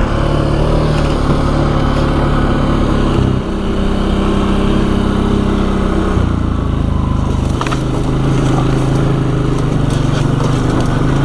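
ATV engine running as the quad rides along a trail, its pitch stepping down and back up a few times as the throttle changes.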